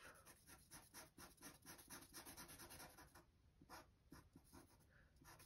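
Sharpie fine-point marker scribbling on paper, quick back-and-forth strokes colouring in a small box. Faint, about six strokes a second for the first three seconds, then slower and sparser.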